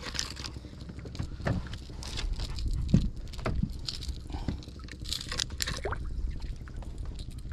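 Irregular knocks, taps and brief splashes aboard a small outrigger boat on open water, over a low steady rumble of wind and water.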